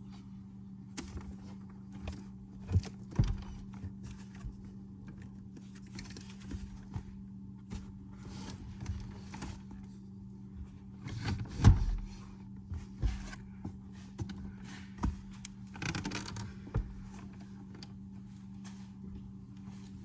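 Irregular clicks, clinks and knocks of tools and metal parts being handled during battery work on a car, over a steady low hum. One louder knock comes a little after halfway.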